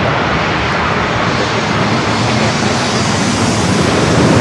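Jet airliner engines running as a steady, loud rush of noise that grows a little louder near the end.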